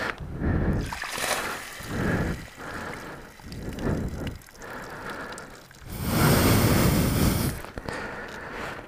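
Water squirted in spurts from a hydration-pack bladder, splashing onto the hot clutch cover of an enduro motorcycle, with a longer, louder splash about six seconds in. The water is cooling a slipping clutch whose hydraulic pump seals have failed.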